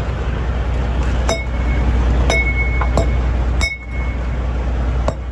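Semi-truck tires and aluminum wheels struck during a pre-trip tire check: four sharp, briefly ringing metallic pings about a second apart, over a steady low engine hum. Tapping tires this way checks inflation, since a low tire makes a different noise.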